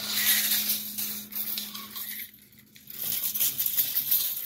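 The extended blade of a tape measure rattling and scraping as it is dragged and flexed across a carpet, with a short lull a little past halfway.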